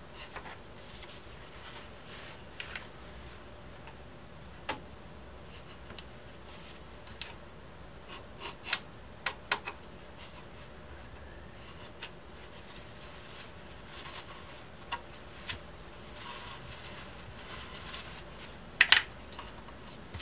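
Hand work at a workbench while guitar-top braces are glued down: scattered light clicks and taps with brief rustling, and a sharp double knock near the end.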